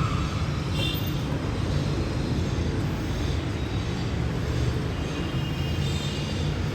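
Steady low rumble with a light hiss, with a brief faint clatter about a second in.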